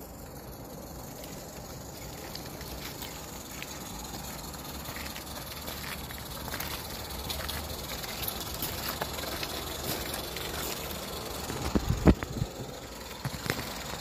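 Small live-steam garden-railway locomotive drawing closer and passing, its steam hissing and its wheels clicking over the track, growing slowly louder. A few sharper clacks come about twelve seconds in.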